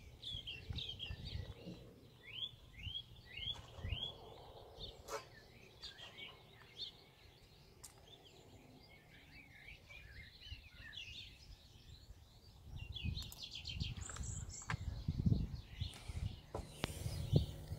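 Small birds chirping in short repeated calls, with a few faint clicks and some low rumbling in the second half.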